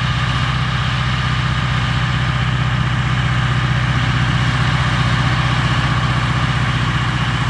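Case 4994 tractor's 866 cubic inch Scania V8 diesel running steadily under load while pulling a chisel plow, a loud, even low throb.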